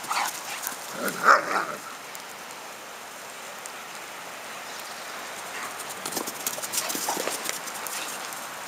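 Irish wolfhounds playing: a couple of dog barks in the first two seconds, the loudest about a second in, then a spell of quick scuffling knocks as the dogs tussle near the end, over a steady patter of hail.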